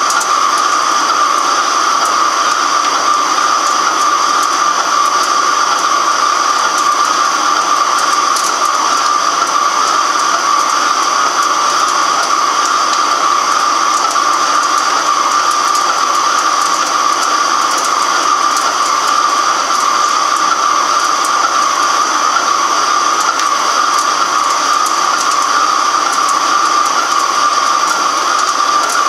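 Microcut BNC-6500 heavy-duty flat-bed lathe turning a large metal workpiece, the tool cutting steadily. A loud, even hiss with a strong mid-pitched tone and a fainter high whine, unchanging throughout.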